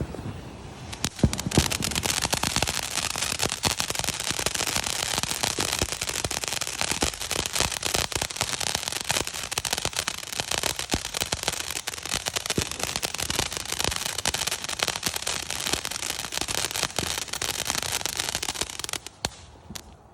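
A 'Sailor' consumer firework going off: a dense, continuous crackling over a hiss, starting about a second in and dying away near the end.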